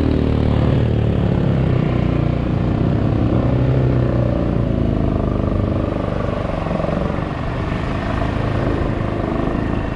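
Off-road motorcycle engine running steadily at trail pace, its note rising and falling a little with the throttle.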